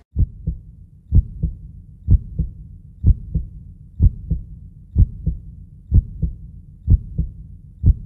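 Heartbeat: steady pairs of low thumps, a stronger beat followed by a softer one, repeating about once a second.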